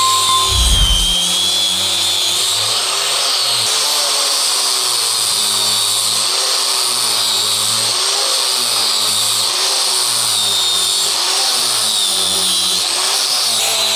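Angle grinder with a sanding pad running steadily as it sands a wood slab, a loud high whine that dips and rises slightly in pitch. A brief low bump comes about a second in.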